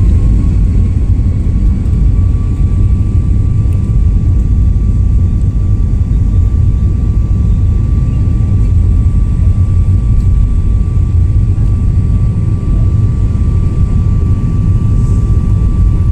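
Airliner's jet engines at takeoff power, heard from inside the cabin: a loud, steady rumble with a high whine that finishes rising right at the start and then holds at one pitch.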